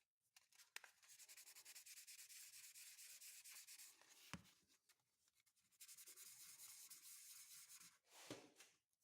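Faint, quick back-and-forth strokes of sandpaper rubbed by hand over a pocket knife's acrylic handle, in two runs with a pause about four seconds in and a light click at the break.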